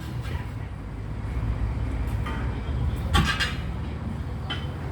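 Steady low rumble of running machinery, with a few sharp knocks, the loudest a little after three seconds in.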